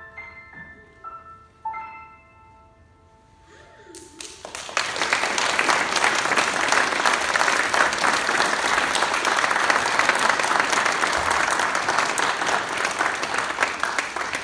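Grand piano playing the last few notes of a piece, the final chord left ringing for about two seconds; then an audience breaks into steady applause that lasts to the end.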